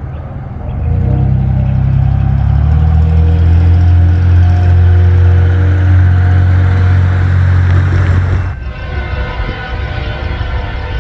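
Train horn sounding a chord in and out over the heavy low rumble of a train. About eight and a half seconds in, the sound cuts off suddenly and switches to a different recording with a steady chord of many tones.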